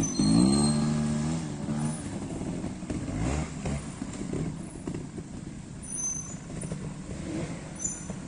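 Trials motorcycle engine revving in quick rises and falls as the bike climbs an obstacle, then running lower with short throttle blips. There is a dull thump about three and a half seconds in.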